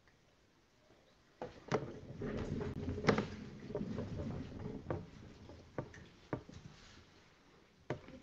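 Near silence, then from about a second and a half in, rustling with scattered clicks and knocks: papers and a book being handled close to the microphone.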